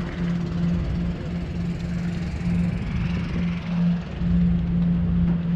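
Steady low drone of an engine, one constant hum over a low rumble.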